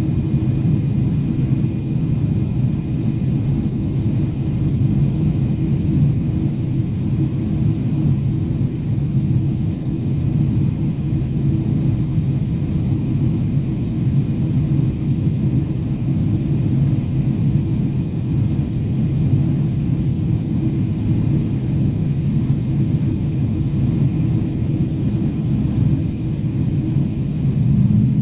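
Steady cabin noise of a jet airliner on descent: the low rumble of the engines and airflow heard from inside the cabin, with a few faint steady hums on top.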